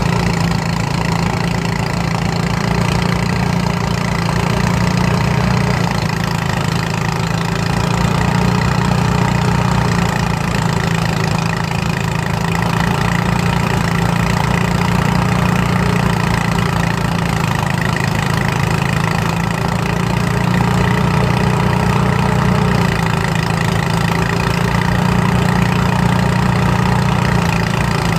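Motorised rice threshing machine running steadily, its engine driving the threshing drum while sheaves of rice are fed in by hand.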